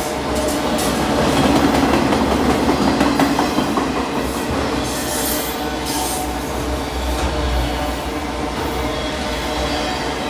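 Freight train of autorack cars rolling past close by: a steady rumble and rattle of wheels on the rails, a little louder in the first few seconds, with brief high wheel squeals about five and six seconds in.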